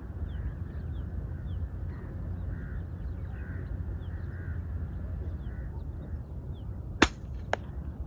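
A single shot from a .22 Edgun Matador R3M PCP air rifle about seven seconds in: one sharp crack, then a fainter click about half a second later. Before it there is a steady low rumble and faint bird chirping.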